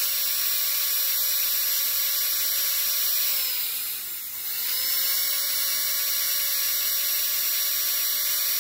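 High-speed dental handpiece with a fissure bur whining steadily as it cuts and smooths the walls of a class I cavity in a plastic typodont lower first molar. A little past three seconds in, the whine winds down, then spins back up about a second later and runs steady again.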